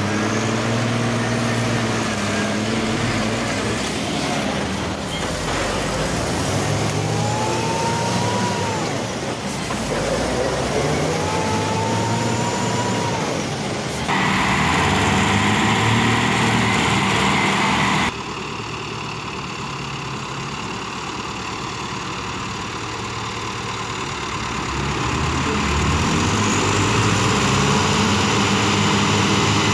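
Diesel engines of Fendt and Zetor farm tractors working hard under load as they tow a lorry bogged in mud, revving up and falling back twice in the first half, with a changed, noisier engine sound for a few seconds in the middle.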